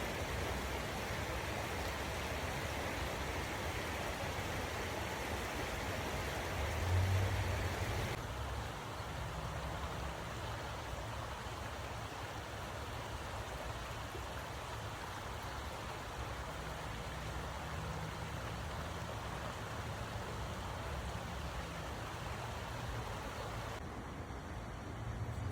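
Steady rush of a waterfall, an even hiss of water with a low rumble underneath. About eight seconds in the sound changes abruptly to a duller, softer rush.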